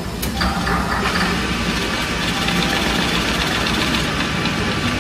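Maybank ATM's internal mechanism running: a click, then a steady mechanical whirring.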